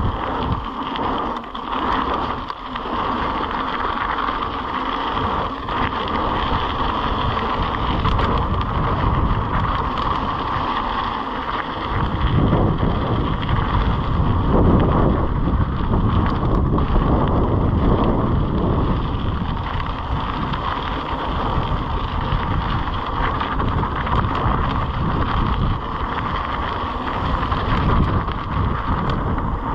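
Mountain bike rolling down a dirt flowtrail: steady tyre noise on the trail surface mixed with wind on the microphone, with a heavier low rumble for several seconds around the middle.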